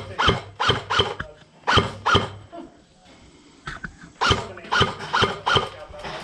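Airsoft gun firing single shots in quick, uneven strings, about a dozen in all, with a pause of about a second in the middle.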